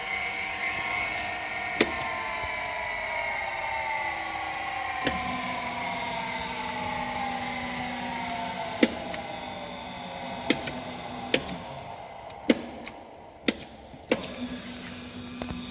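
Surface grinder machinery running down: several tones fall slowly in pitch over about eight seconds, as the spindle coasts. Sharp clicks come every second or two from about two seconds in, and a steady low hum starts about five seconds in, dropping out briefly near the end.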